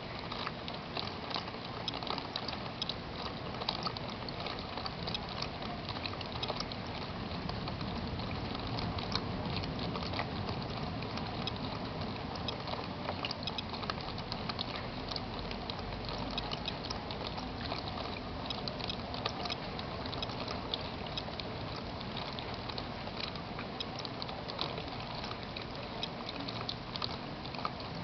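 Rain falling steadily, an even patter with many sharp ticks of drops striking close by.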